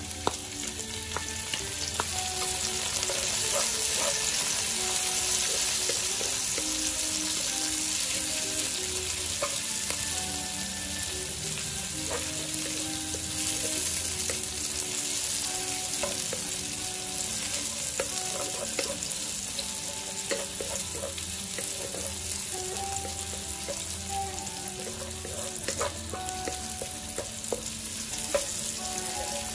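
Shallots and minced garlic sizzling in hot oil in a wok, stirred with a wooden spatula that scrapes and clicks against the pan. The sizzle swells over the first few seconds as the freshly added shallots heat up, then holds steady.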